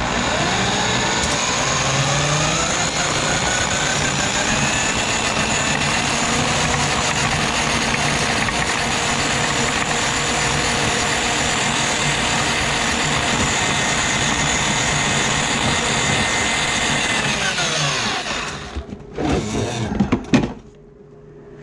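Handheld electric drum auger running as its cable is fed down a grease-clogged kitchen sink drain. The motor spins up with a rising whine over the first few seconds, runs steadily, then winds down near the end, followed by a few short bursts.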